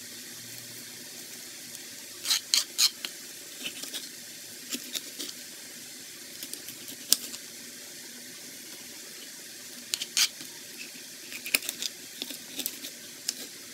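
Kitchen knife cutting a green bell pepper on a plastic cutting board: scattered sharp taps and clicks in irregular clusters as the blade goes through the pepper and strikes the board, over a steady background hiss.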